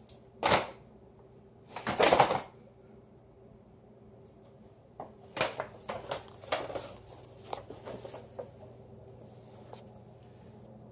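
Paper shopping bag rustling and crinkling as a dog noses at it, in short bursts: one about half a second in, the loudest about two seconds in, then a run of rustles from about five to eight seconds.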